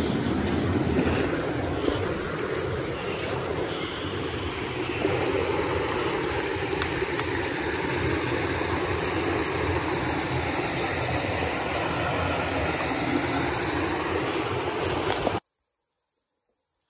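Steady rushing of a bush stream's flowing water, a dense even hiss with no distinct notes, which cuts off abruptly about fifteen seconds in, leaving near silence.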